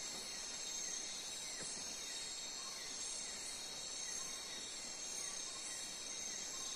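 Night insect chorus: crickets trilling steadily and high-pitched, with a short falling chirp repeating at an even pace beneath them.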